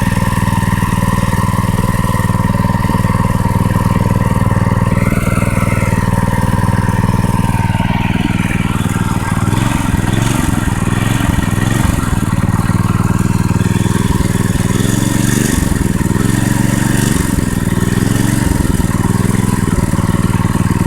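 Predator 212cc single-cylinder four-stroke engine idling steadily on fresh oil, running smoothly. From about nine seconds in, the lower part of the sound wavers a little.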